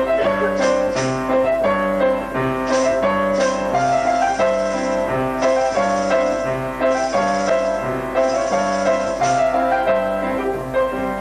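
Piano music: an instrumental passage with a regular, repeating bass-note pattern under sustained chords.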